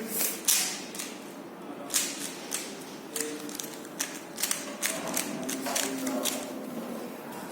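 Rubik's cube being turned by hand, its plastic layers clicking and clacking in quick, irregular runs.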